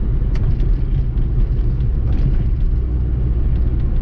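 Austin Allegro 1500's E-series four-cylinder engine and road noise heard inside the cabin while driving, a steady low rumble, running with the choke just pushed in. A single light click about a third of a second in.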